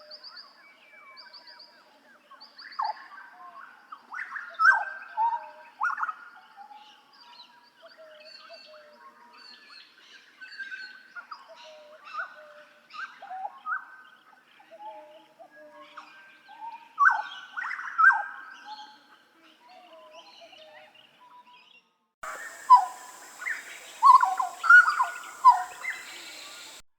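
Butcherbird (Jagal Papua) singing a string of varied, fluting whistled phrases, many with sharp downward-sliding notes. About 22 seconds in the recording changes to another take with a steady hiss behind the song.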